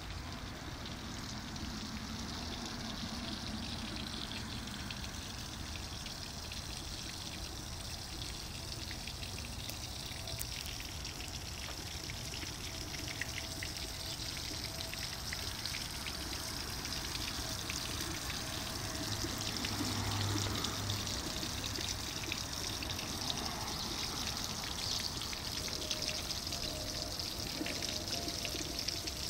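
Water fountain running: water flowing across a flat stone table and spilling over its edges into the basin below, a steady pouring and trickling.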